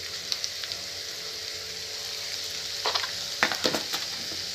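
Sliced onions sizzling in hot oil in a kadai, a steady frying hiss with a few sharp clicks, a cluster of them about three seconds in.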